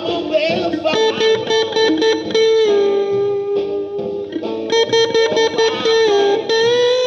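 Electric blues guitar: a solid-body electric guitar played through an amplifier, sustained notes changing one after another, some bent upward.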